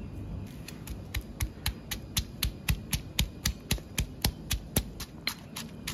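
Stone pestle pounding fresh herbs, chillies and salt into a paste in a stone mortar. Steady knocks, about four a second, starting about half a second in.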